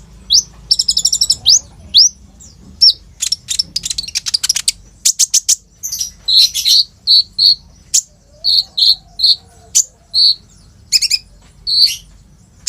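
A kolibri ninja sunbird singing hard: rapid, sharp, high chirps and upswept notes, a short buzzy trill and a quick rattle of clicks. The song then settles into short notes repeated about twice a second.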